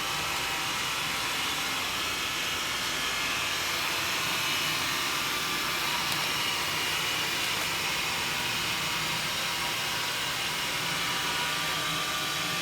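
Xiaomi Mi robot vacuum running, its suction fan and brushes making a steady, even whirring hiss as it cleans.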